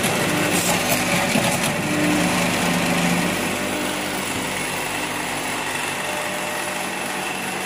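JX-ME-CT automatic cable tie machine running, a steady mechanical buzz from its vibratory bowl feeder and drive, a little louder and more uneven in the first few seconds before settling to an even hum.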